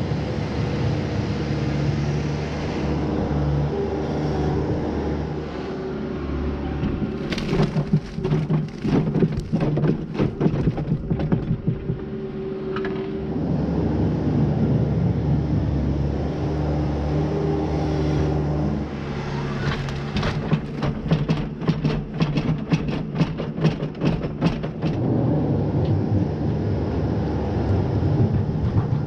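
Skid-steer loader's diesel engine running under load as it pushes manure. Twice it is joined by long runs of sharp scraping and clattering from the bucket working along the concrete.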